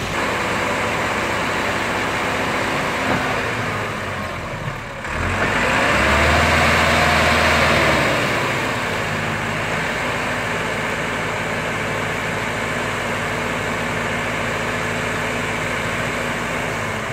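Massey Ferguson 385 tractor's diesel engine running steadily, revved up for about three seconds some five seconds in, with the pitch rising and falling back, as the hydraulic tipping trolley is raised. It then settles back to a steady run.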